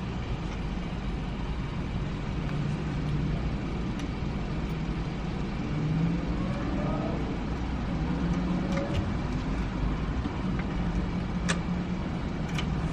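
A car's engine and road noise heard from inside the cabin, a steady low rumble, with a couple of faint clicks near the end.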